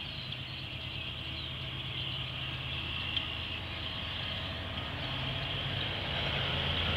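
Diesel locomotives of an approaching freight train heard from afar: a low, steady engine drone that grows slowly louder. A steady high-pitched chorus sits above it.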